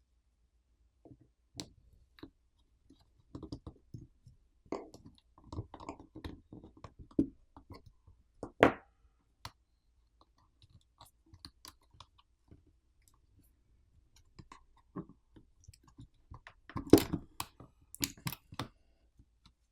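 Scattered small clicks, taps and scrapes of a screwdriver and tools working on a smartphone as the Phillips screws holding the battery assembly are removed. There is a sharper click about nine seconds in and a denser bout of clatter near the end.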